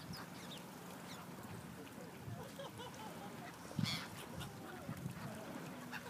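A flock of seagulls calling, many short overlapping calls, with one louder sharp sound about four seconds in.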